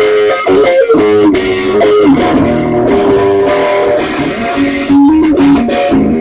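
Background music with electric guitar, a bass line and a steady beat.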